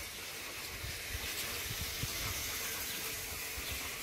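Steady outdoor background hiss, mostly high-pitched, with faint low rumbles.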